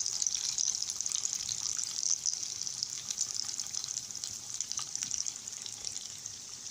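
Ta'ameya (Egyptian falafel) patties deep-frying in hot oil in a pan: a steady, bright sizzle with fine crackling, easing a little toward the end.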